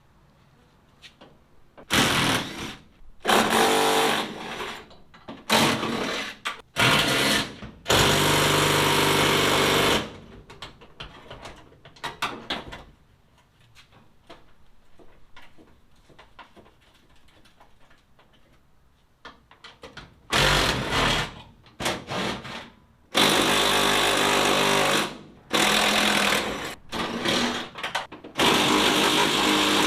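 Cordless impact wrench running in short bursts of one to two seconds, backing out door hinge bolts, with scattered small clicks and knocks in a quieter stretch in the middle.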